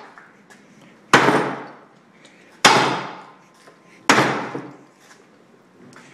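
Rubber mallet striking a torn-down Briggs and Stratton small engine three times, about a second and a half apart, each whack ringing on briefly before it dies away.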